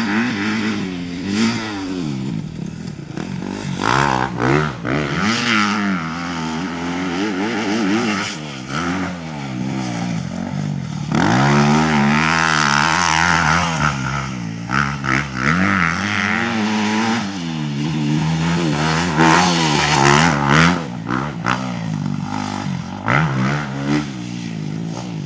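Motocross dirt bike engine revving hard and shutting off again and again, its pitch climbing and dropping as the rider accelerates and brakes around the track.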